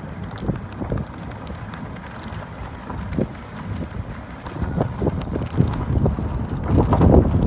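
Wind buffeting the microphone, with footsteps on asphalt that grow louder and closer together over the last few seconds.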